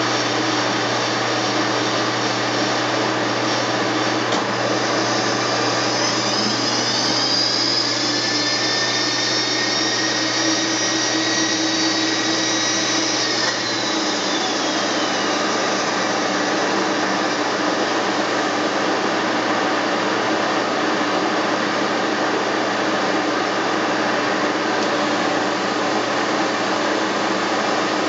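Steady whirring shop machinery throughout, joined about six seconds in by a milling machine's table power-feed motor whining up, running for several seconds as it traverses the table, then winding down around the middle.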